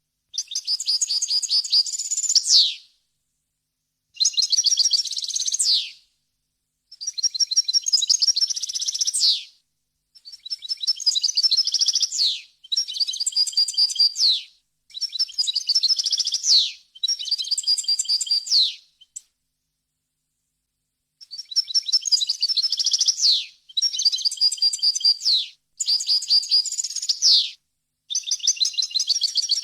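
European goldfinch singing: a string of rapid, twittering, high-pitched song phrases, each about two seconds long, with short pauses between them and a longer pause a little past the middle.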